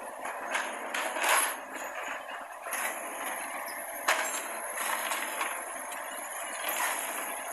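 Hitachi mini excavator working, its engine running under clanks and knocks as the bucket handles building rubble, with the sharpest knocks about a second in and about four seconds in.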